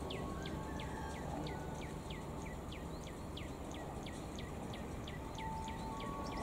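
Bird calling over and over: short falling chirps, about three a second, over a low steady rumble.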